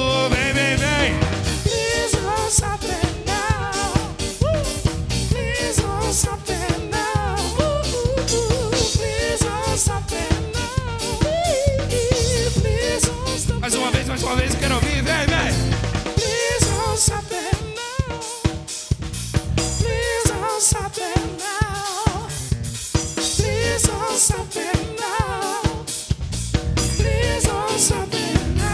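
Band playing an instrumental passage: a drum kit keeps a steady beat with snare and bass drum under a bass line and a wavering melodic lead.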